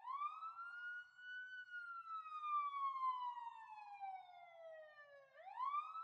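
Police siren wailing: the pitch climbs quickly, sinks slowly for about five seconds, then climbs again near the end.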